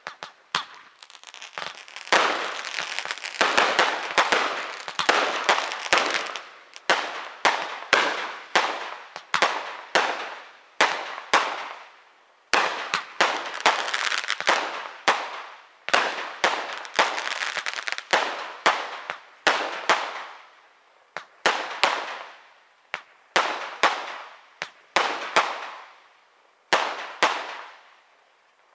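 Aerial firework shells bursting in quick succession: a steady run of sharp bangs, about one or two a second, each trailing off in a fading hiss.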